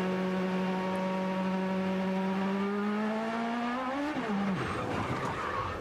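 Onboard sound of a 2008 IndyCar's Honda V8 engine. The note is steady at first, then climbs slowly in pitch. About four seconds in it falls sharply away and gives way to a rough rushing noise.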